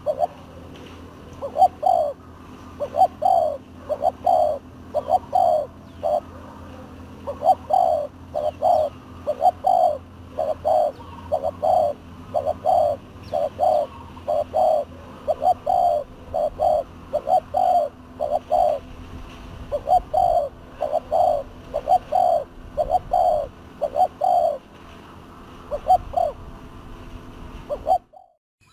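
Spotted doves cooing over and over, each phrase a run of two or three soft notes, with about one phrase every second or two. A steady low hum lies underneath.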